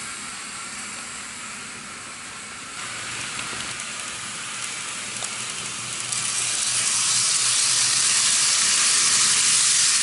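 N-gauge model trains running on the track: a steady whirring hiss of small motors and wheels with a faint low hum. It gets louder about three seconds in and again about six seconds in, as a JR 201 series electric train model passes close by.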